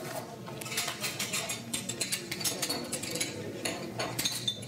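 Clinking and clattering of china: square plates set down on a counter and a spoon tapping and scraping against a small ceramic bowl as food is plated, several sharp clinks a second.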